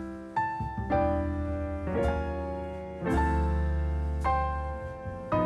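Slow solo piano music, a note or chord struck about once a second and left to ring out.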